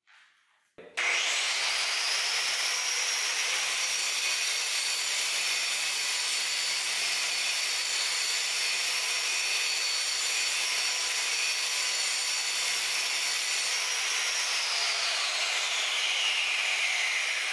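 Angle grinder starting about a second in and grinding steel off one tip of a lawnmower blade, a steady high whine over rasping noise, removing weight to balance the blade. Near the end it is let off and spins down, its whine falling in pitch.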